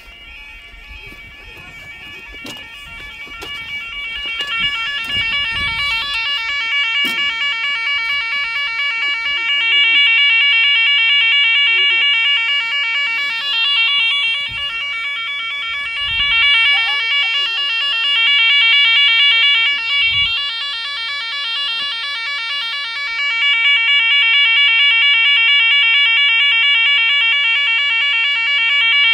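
Level crossing warning alarm sounding, a rapid warbling electronic tone that grows louder over the first ten seconds and then holds steady and loud.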